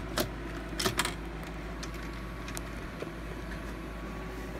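VCR's tape mechanism loading a VHS cassette and starting play: a few sharp clicks and clunks in the first second, a fainter click about three seconds in, over a steady low hum.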